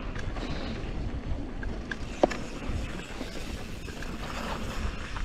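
Wind buffeting the camera microphone over the rumble of a Canyon Strive enduro mountain bike rolling on a dirt trail, the bike rattling over the ground. A single sharp clack a little over two seconds in is the loudest sound.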